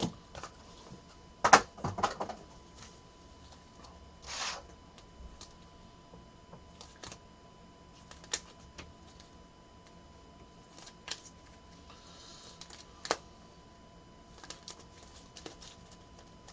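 Trading cards being handled and sorted on a table: scattered light clicks and taps, with a brief rustle about four seconds in and a softer one near the three-quarter mark. A faint steady tone hums underneath.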